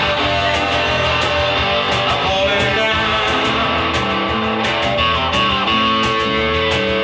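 Live rock band playing a song: guitars over a steady beat, with regular sharp hits.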